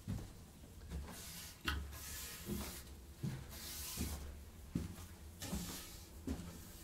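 Handling noise: a string of soft, irregular knocks and thumps with bits of rustling, roughly one every second.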